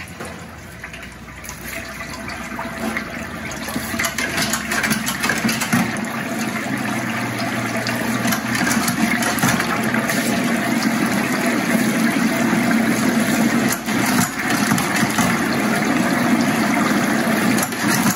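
Hot oil in a Broaster 1800 pressure fryer's cooking well sizzling and bubbling as pieces of breaded raw chicken are lowered in one after another. The crackling sizzle grows louder over the first several seconds as the basket fills, then holds steady.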